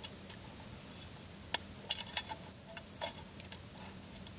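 Sharp clicks and clinks of metal camp cookware being handled: a loud one about one and a half seconds in, a quick cluster around two seconds, then a few lighter ones.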